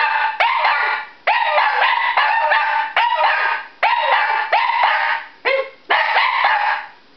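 Two Shih Tzus howling together at a fire siren: a quick run of short, pitched howls, each rising at its start, about one a second, stopping near the end.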